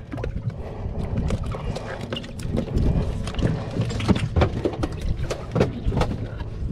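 Irregular knocks, clicks and clatter from hands handling gear in the fibreglass stern of a small boat, over a steady low rumble.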